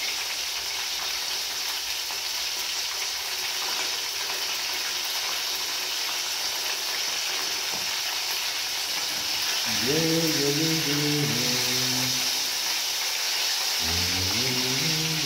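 Hot oil sizzling steadily in a covered frying pan as festival dumplings fry. About two-thirds of the way in, a low voice hums a few held notes, twice, and a utensil is worked in the pan near the end.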